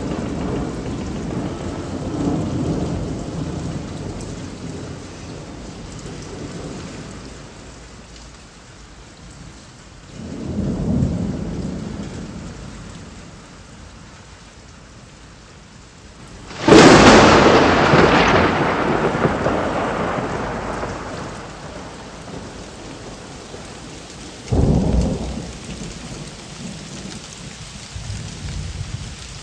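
Thunderstorm: steady rain with a low rumble of thunder about ten seconds in, then a sudden sharp thunderclap a little past halfway that rolls away over several seconds, and a shorter low boom of thunder near the end.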